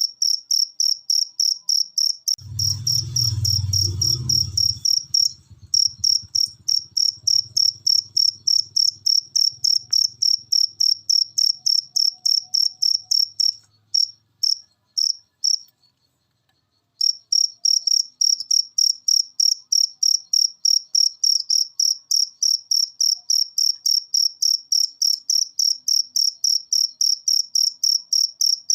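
A cricket chirping in a steady, high-pitched rhythm of about four chirps a second. A low rumble comes in about two seconds in and fades away over the next several seconds. Around the middle the chirping falters and stops for about a second, then resumes steadily.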